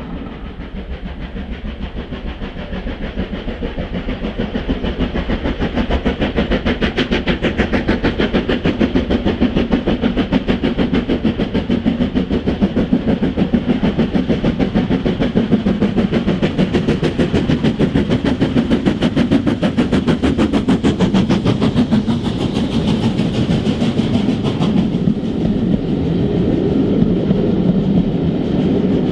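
Steam-hauled train running past, a fast, even beat that grows louder over the first few seconds and then holds. Its brighter upper sound cuts off suddenly near the end.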